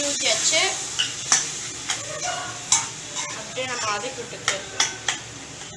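Metal spatula stirring potato masala in a metal kadai, clacking and scraping against the pan several times over a steady sizzle of the hot, watery masala.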